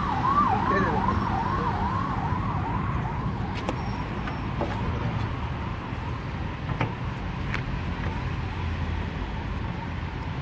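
A siren yelping in quick rising-and-falling sweeps, about three a second, that fades out after about three seconds, over a steady low rumble.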